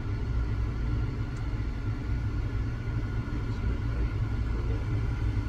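Steady low mechanical rumble, an even engine-like drone with no sudden sounds.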